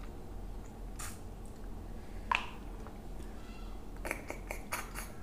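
Close-miked eating with the fingers: soft squishes and clicks as rice and curry are mixed and picked up, then a quick run of wet lip smacks and chewing clicks near the end as food goes into the mouth. A steady low hum runs underneath.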